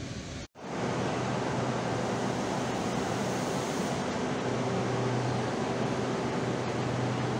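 Train running noise cuts off abruptly about half a second in. A steady hum and hiss of railway-station platform ambience follows.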